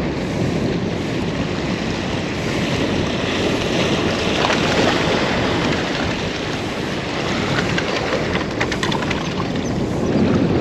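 Wind buffeting the microphone over the wash of waves at the shore, a steady rushing noise. A brief run of light clicks comes about eight and a half seconds in.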